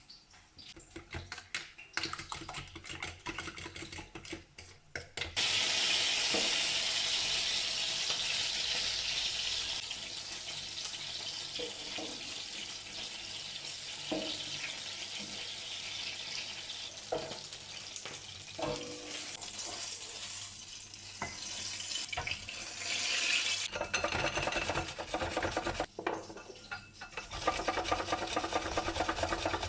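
Kitchen work: a steady hiss that starts about five seconds in and cuts off near the end, with a few light clinks of dishes or utensils in between.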